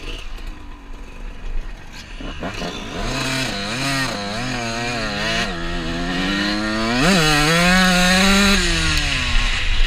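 Honda CR125 two-stroke single-cylinder dirt bike engine revving as it is ridden, its note rising and falling with the throttle, then climbing sharply about seven seconds in and held high. Low wind rumble on the helmet-mounted camera underneath.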